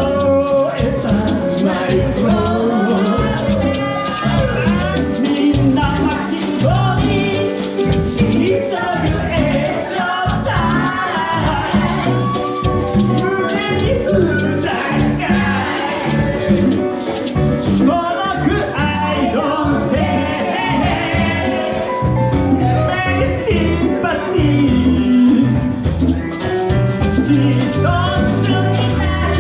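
Live salsa band playing, with a lead vocal sung over a steady Latin percussion beat.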